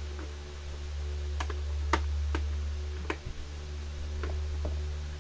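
Hard plastic parts of a toy kitchen set clicking and knocking as a piece is fitted into its base: about six sharp separate clicks, the loudest about two seconds in, over a steady low hum.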